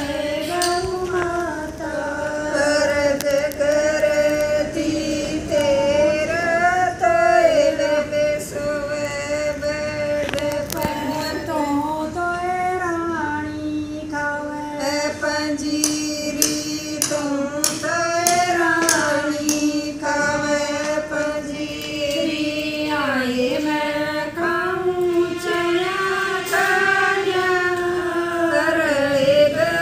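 Women singing a Haryanvi devotional bhajan together, one continuous melodic line with gliding, ornamented notes. Occasional sharp clicks are heard alongside the voices.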